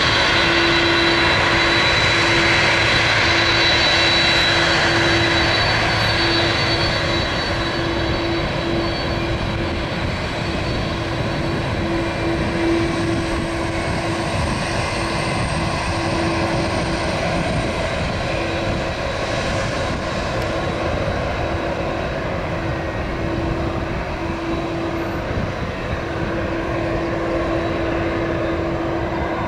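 Boeing 767-300 jet engines running at taxi power as the airliner rolls past: a steady rumble with a high whine, loudest for the first few seconds and then a little lower and even.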